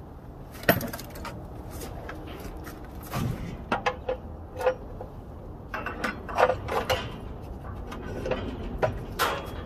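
Metal hand tools clicking, clinking and knocking against copper water pipes as adjustable pliers are fitted onto a pipe elbow. The knocks come at irregular moments, the sharpest about a second in.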